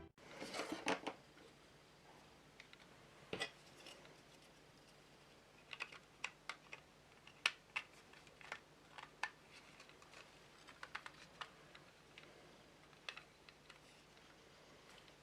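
Faint, scattered clicks and light taps of small plastic model-kit parts and tools being handled on a workbench, with a quick cluster in the first second and then single ticks every second or so.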